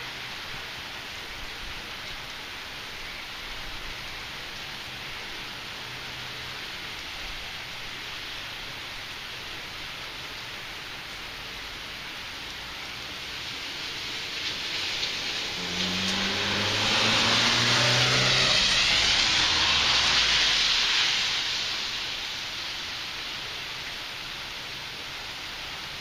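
Steady heavy rain falling. About halfway through, a car passes on the wet street: tyre hiss swells over several seconds and fades, and the engine note drops in pitch as it goes by.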